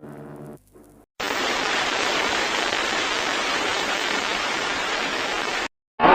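A loud, steady hiss of rushing noise with no pitch, switching on abruptly about a second in and cutting off just as suddenly near the end. A faint pitched tone sounds briefly before it.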